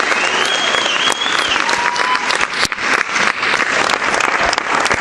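Audience applauding, with a high whistle over the clapping in the first second or so. The applause thins to scattered separate claps near the end.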